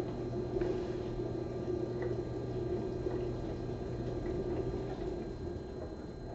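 Room tone: a steady low hum with a few faint ticks.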